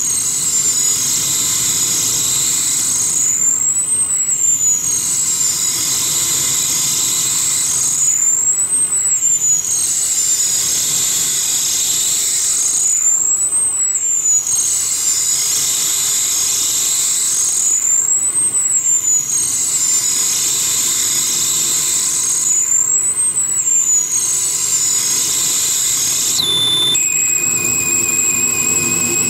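Live harsh noise music from a performer's tabletop electronics: a dense, unbroken wall of noise with a high whistling tone that sweeps up and back down about every five seconds. Near the end the texture switches suddenly to steady high-pitched tones.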